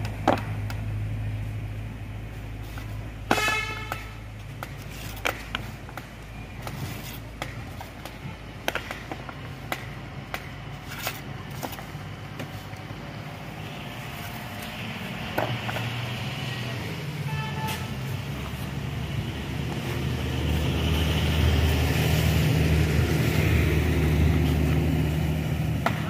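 Roadside construction noise: a steady hum of engines from traffic and machinery, with many sharp knocks and clinks of stones and masonry tools as stones are set in a wall, two of them ringing briefly. A heavy vehicle's engine grows louder in the second half and is loudest near the end.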